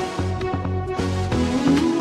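Background electronic music with a steady beat and sustained synth notes.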